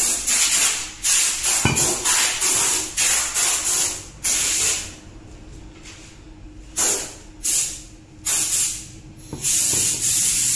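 Repeated loud bursts of hissing noise, each well under a second to about a second long, with short gaps between them.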